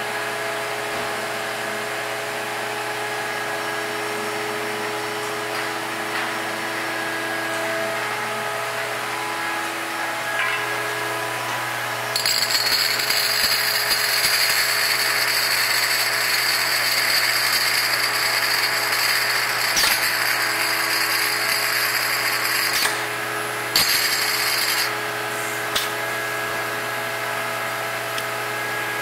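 Bottle-filling line of a two-head gravity filler running: conveyor and turntable motors hum steadily. From about twelve seconds in, a louder hissing rush joins for some ten seconds as the nozzles fill the bottles, and a second short hiss follows.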